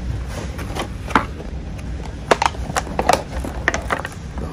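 White cardboard packaging being opened and handled by hand: irregular rustles, scrapes and several sharp clicks over a low steady hum.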